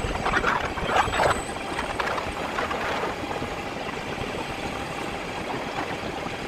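Electric bike being ridden: steady rushing wind and road noise, with a faint high steady tone and a few brief squeaks in the first second and a half.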